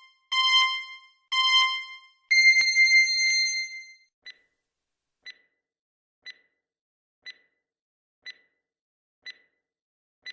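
Electronic timer sound effect: two short beeps a second apart, then a longer, higher beep, then a soft tick once a second, counting down the answering time.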